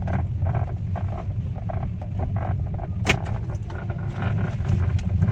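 Hyundai Aura steering column knocking and creaking as the steering is worked: a run of short irregular clicks with one sharper knock about three seconds in, over a steady low rumble. The noise comes from a column lacking proper grease.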